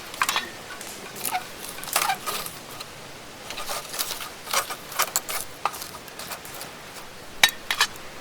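Irregular light clinks and clatters of small hard objects being handled, several in quick succession, over a steady hiss of rain.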